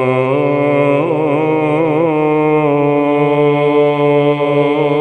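Byzantine chant: male voices draw out the final melismatic cadence of a hymn, with slow wavering ornaments over a steady held drone (the ison).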